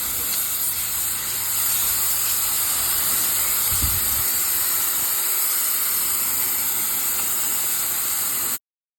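High-pressure water spray from a pressure washer hitting pavement, a steady hiss that cuts off suddenly near the end.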